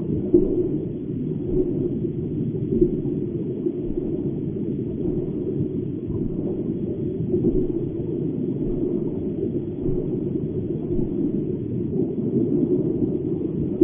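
Steady low rumble of water circulating in an aquarium, with no rhythm or clear tone.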